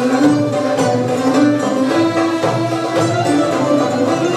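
Turkish classical music instrumental ensemble playing a steady flowing melody line led by bowed strings; the choir is not singing in this passage.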